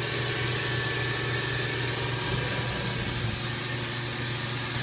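Fadal VMC2016L CNC vertical machining center running, a steady high whine over a constant low hum.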